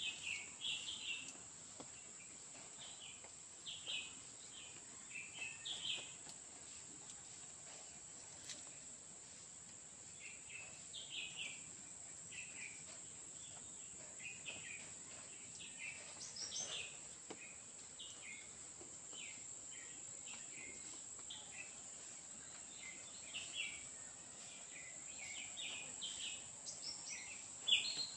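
Steady high-pitched drone of insects in vegetation, with short bird chirps coming in quick runs every second or two throughout.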